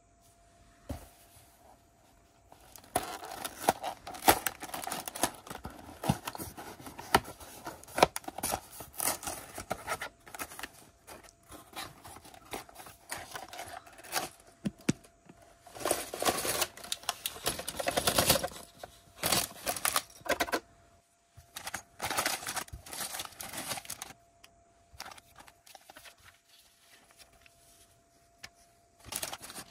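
Lego set being handled: bursts of small plastic pieces rattling and clicking, with rustling of packaging.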